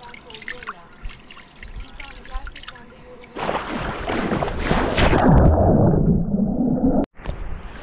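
Water running, starting abruptly about three and a half seconds in and getting louder, then cutting off suddenly near the end.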